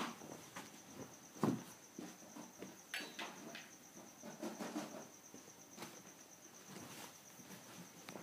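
Guinea pigs scampering on carpet: soft, irregular patters and light thumps, the strongest about a second and a half in and again near three seconds. A faint steady high whine sits beneath them.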